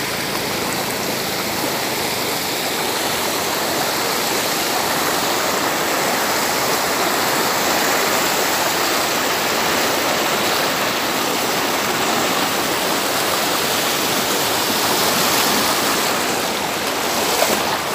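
Muddy floodwater rushing across a tar road in a steady torrent, breaking up the asphalt as it flows over it.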